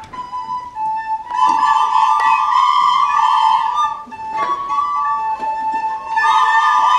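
A group of children playing soprano recorders together in unison, holding long notes that step between two or three neighbouring pitches, with a short lull in the playing a little past the middle.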